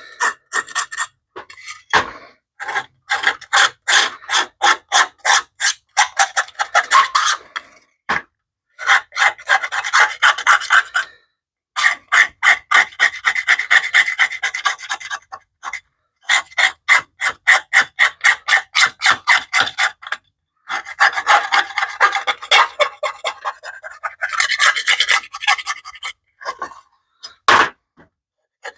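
Rapid back-and-forth hand scrubbing on a BMW E30 motor-mount heat shield, abrading grime off the metal, at several strokes a second in runs of a few seconds with short pauses between.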